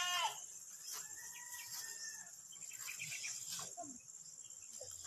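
Insects trilling steadily at a high pitch, with a few brief rustles of fern fronds being brushed and picked.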